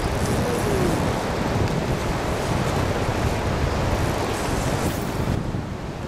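Wind buffeting the microphone: a steady rushing noise with a heavy, fluttering low rumble. The high hiss drops away about five and a half seconds in.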